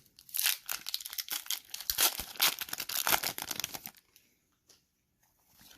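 Foil wrapper of a Pokémon booster pack crinkling and tearing as it is opened by hand, a dense crackle for about four seconds that then stops.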